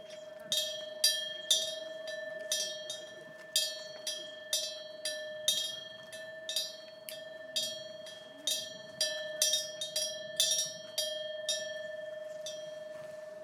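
Wind chime ringing, struck irregularly about twice a second, each strike a bright high ring that dies away, over a steady sustained tone; the strikes thin out near the end.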